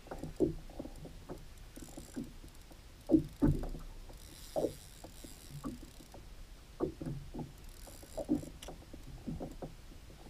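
Irregular soft knocks and thumps from a plastic fishing kayak and its rod-and-reel gear while a hooked fish is being fought, the loudest a pair of thumps about three seconds in. A faint high hiss comes and goes.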